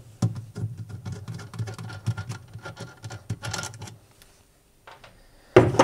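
Rapid small clicks and scratches of a nut being loosened and turned off the metal shaft of a fridge thermostat, by pliers and then fingers, against the plastic control housing. It stops for about a second, then a single sharper knock comes near the end.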